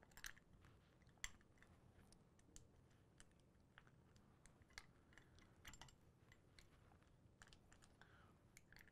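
Near silence broken by faint, scattered light clicks and taps of small metal parts being handled: the M2 back plate's buffer washers being set into place.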